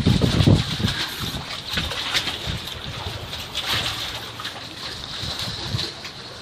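Water lapping and splashing against wooden pilings, with wind buffeting the microphone until about half a second in. Occasional light knocks, from footsteps on the wooden planks.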